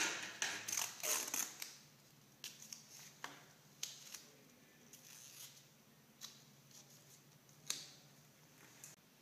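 Gloved hands handling IV supplies: a burst of crinkling rustles in the first second and a half, then scattered small clicks and rustles.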